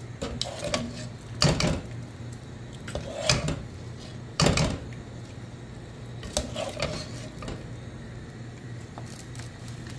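A plastic cooking spoon stirring a pot of stew and knocking against the coated pot, a handful of sharp knocks with the loudest about four and a half seconds in, over a steady low hum.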